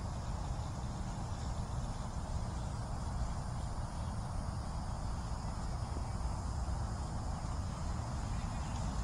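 Steady outdoor background noise with a low, unsteady rumble and no distinct event.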